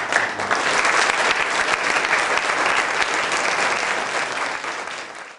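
A crowd applauding, dense steady clapping that fades away over the last second and then stops.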